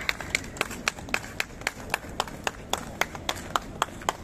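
Spectators clapping steadily, about four sharp claps a second.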